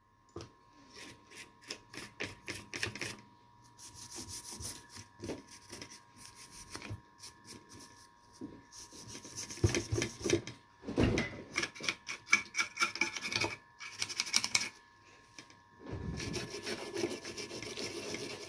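A brush scrubbing a radio-cassette recorder's circuit board with thinner, in clusters of quick rubbing strokes broken by short pauses.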